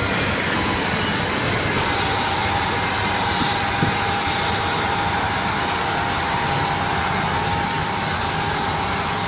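Power sander running steadily under load. About two seconds in the sound brightens and a steady whine joins in.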